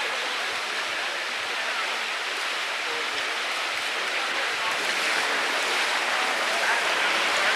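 Floodwater of a swollen creek rushing through whitewater: a steady, even rush with no breaks.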